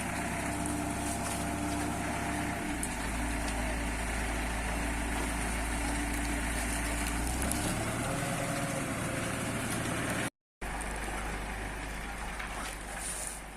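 Engine of an SLM 4000 self-loading concrete mixer running steadily at idle. The sound drops out for a moment about ten seconds in, then carries on.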